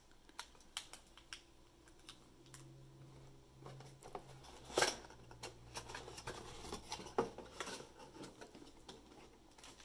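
Hands handling a cardboard product box and its packed accessories: scattered light clicks, taps and rustles, with a couple of sharper knocks midway.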